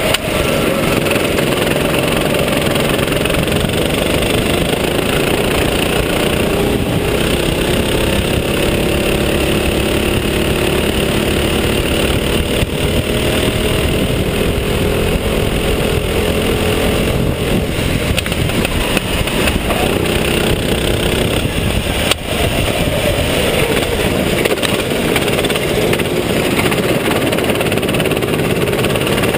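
Go-kart engine heard from the driver's seat, running hard with its pitch rising and falling as the driver eases off and accelerates through the corners, under a steady rush of noise.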